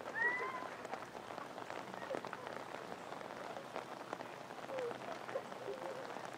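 Water pattering and splashing on a wet, soapy trampoline mat, with many small slaps and clicks. A short rising squeal comes near the start.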